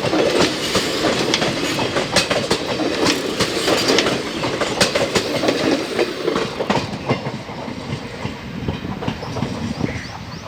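Passenger coaches of an Indian Railways express train rolling past at speed, with a steady rumble and rapid clickety-clack of wheels over rail joints. The clicks thin out and the sound fades over the last few seconds as the train moves away.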